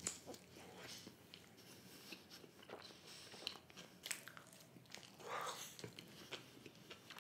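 Faint, close-miked mouth sounds of a man biting into a slice of thick-based pizza and chewing it. Scattered soft crunches and wet chewing clicks come through, with a slightly louder chew about five seconds in.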